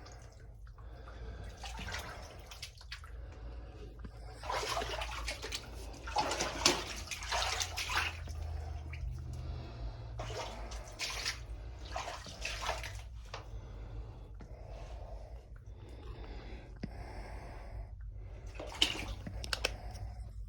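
Water rushing in irregular surges, over a steady low hum.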